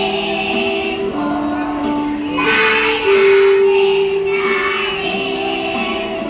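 Music with singing voices, sounding like children, holding long notes that step from one pitch to the next every second or two.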